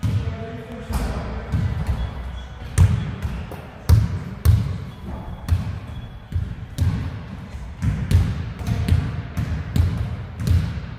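Basketball bouncing on a court: a series of sharp, irregularly spaced thuds, about one a second.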